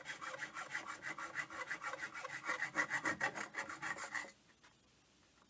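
Hacksaw cutting through a metal pipe with rapid, even back-and-forth strokes that stop suddenly about four seconds in.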